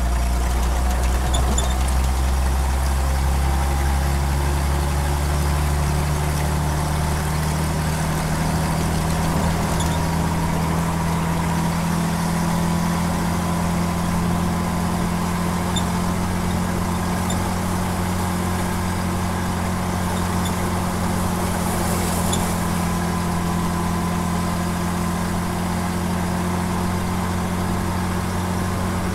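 Chrysler 251 flathead six-cylinder engine of a 1951 M37CDN army truck running steadily under way, heard from inside the cab, with a thin whine that climbs slightly over the first ten seconds and then holds steady.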